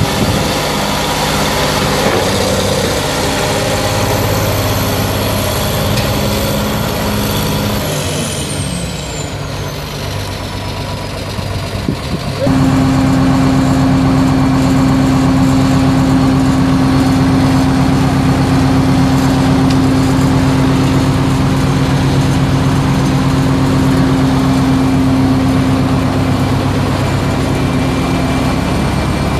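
Six-cylinder turbo diesel engine of a 1977 John Deere 690B excavator running. About eight seconds in it quietens with a falling whine. About twelve seconds in, a steadier, louder drone with a strong low hum sets in abruptly.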